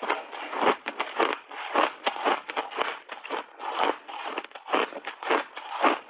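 Chewing a mouthful of crunchy refrozen pink berry shaved ice: a fast, irregular run of crisp crunches, several a second.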